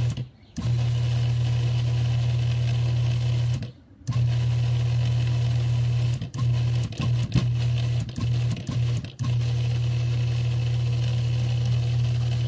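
Electric food processor motor running as it purees cilantro pesto: a steady low hum that stops briefly twice in the first few seconds, is cut into a quick run of short pulses a little past the middle, then runs steady again.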